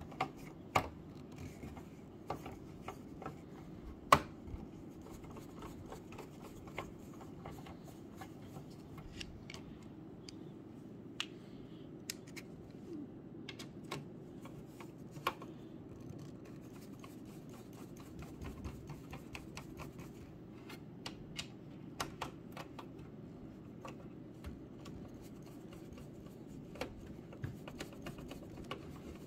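Scattered small clicks and taps of a screwdriver and loose metal parts being handled on a Synology DS1621+ NAS chassis during teardown, the sharpest click about four seconds in, over a steady low hum.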